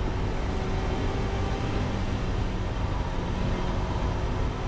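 Race car's engine and road noise heard from inside the caged cockpit, running at steady revs on track.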